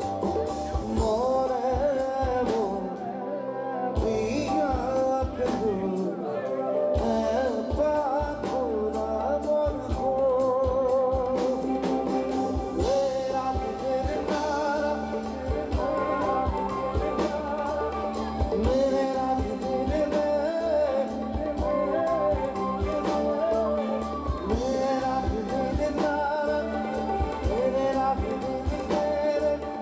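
Live band music: a male vocalist singing a song over strummed guitar and a drum kit keeping a steady beat.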